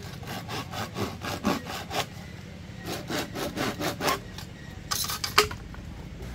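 Rhythmic scraping strokes, about four a second, in two runs with a short pause between, and a louder scrape about five seconds in.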